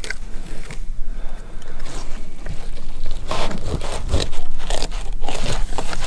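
A knife cutting up a striped bass on a boat deck for chum, with wet crunching through flesh and bone and scraping, heavier from about halfway through.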